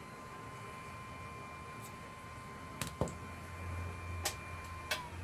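A few sharp clicks, about three seconds in and again near the end, as a precision screwdriver and the iPhone 7 display assembly are handled and set down on a hard workbench, over a faint steady high tone.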